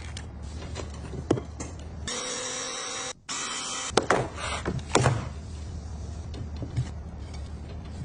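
Kitchen handling sounds while restocking a fridge: light clicks and knocks of containers and packaging being moved, with a dense noisy burst about two seconds in and a few sharper knocks near the middle, over a steady low hum.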